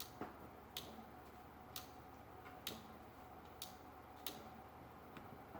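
Faint, sharp clicks about once a second, slightly uneven, over a low room hum.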